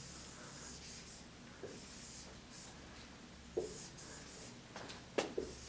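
Marker pen writing on a whiteboard: faint scratchy strokes, with three short light knocks along the way.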